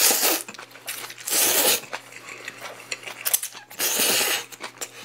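Close-up slurping of japchae glass noodles, three long slurps, with light clicks of chopsticks and bowl in between.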